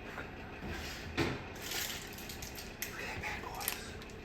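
Light knocks and clinks of a metal baking pan being handled out of the oven and set down on a wire cooling rack, a few scattered taps, one about a second in and a small cluster near the end.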